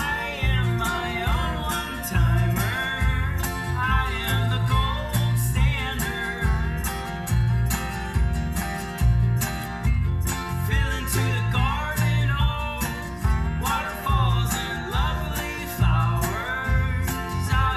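Country-style background music with guitar and a steady beat, a gliding melody line running over it.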